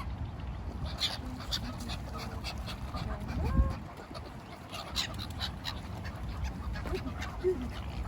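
A dog making sounds close to the microphone, with a short pitched call about three and a half seconds in, over a steady low rumble.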